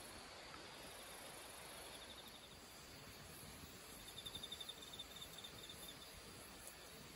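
Faint crickets chirping in quiet night air, with a pulsed, high trill that comes twice, the longer one near the middle.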